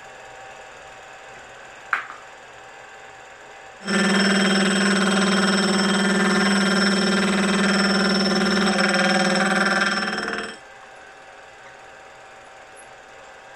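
Milling machine's gear cutter cutting a tooth in a metal bevel gear blank: a loud, pitched ringing that starts about four seconds in, holds steady for about six and a half seconds and then stops. It runs over the faint steady hum of the mill. About two seconds in there is a single sharp click.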